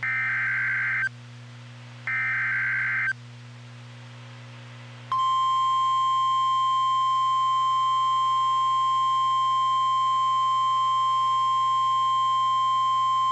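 NOAA Weather Radio Emergency Alert System signal: two one-second bursts of SAME digital header data, about two seconds apart. A couple of seconds later the steady 1050 Hz warning alarm tone starts and holds, announcing that a weather warning follows. A low steady hum runs underneath.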